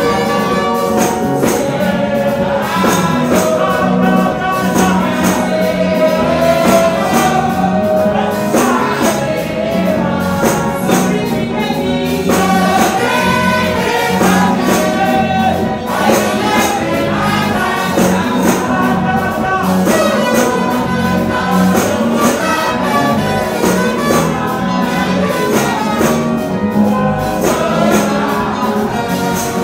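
Gospel worship music played live through speakers: voices singing over a band, with a steady tambourine-like percussion beat.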